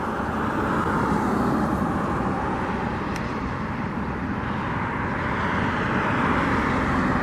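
Steady outdoor rumble of distant vehicles, even throughout with a slight swell in the middle.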